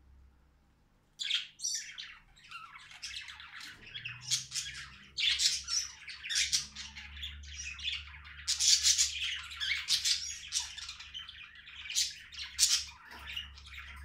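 Budgerigar chattering, a continuous run of rapid high-pitched squawks and chirps that starts about a second in.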